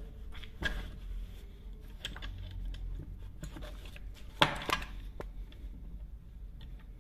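Metal hand tools clinking and knocking against a chainsaw's clutch as a homemade welded-nut wrench is fitted and turned to loosen the clutch. Two sharper knocks come a little over four seconds in.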